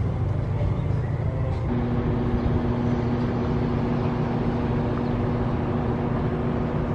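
Steady mechanical hum with a low rumble, joined about two seconds in by a steady higher-pitched motor tone.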